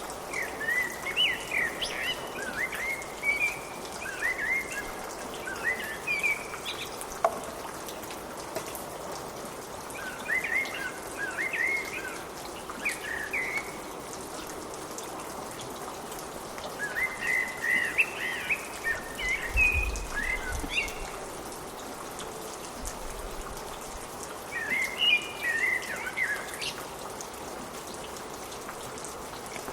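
Steady rain falling, with a songbird singing over it in four bouts of quick, twittering phrases separated by pauses of a few seconds.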